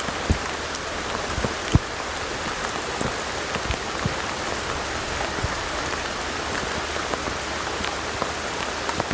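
Steady rain falling in a storm, with scattered sharp taps of individual raindrops.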